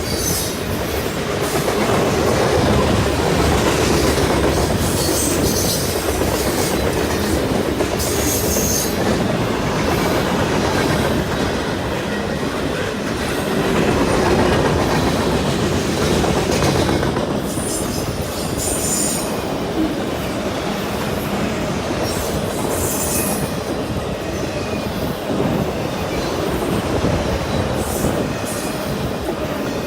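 A train rolling past at close range: continuous wheel and rail rumble with clattering over the rail joints and brief high-pitched wheel squeals now and then.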